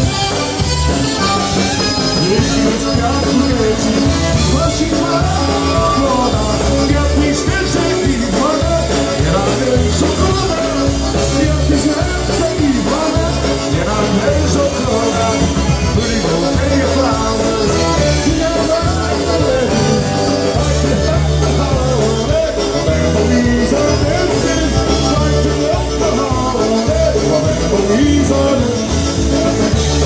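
Live polka band playing a lively tune on accordions, trumpet, electric bass and drum kit, with a steady bouncing beat.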